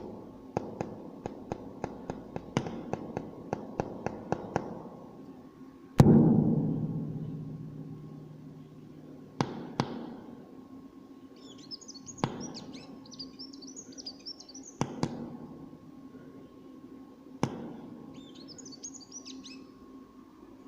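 A small bird's high, rapid twittering chirps in two bursts, in the second half. Earlier comes a run of sharp taps, about three a second, then one loud knock with a low ringing decay about six seconds in, and a few single taps later, over a steady low hum.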